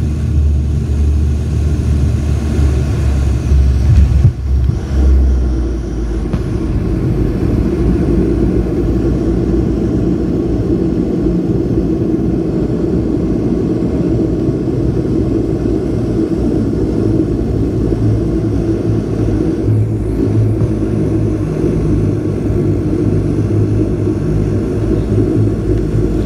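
Twin-turboprop cabin noise inside a de Havilland Canada Dash 8-100 after landing: a heavy rumble swells and falls away about five seconds in, then the engines and propellers settle into a steady drone.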